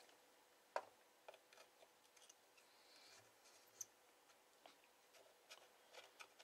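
Near silence broken by faint, scattered clicks and taps of small hand tools (a screwdriver and a probe) against an amplifier's circuit board, the sharpest click about a second in.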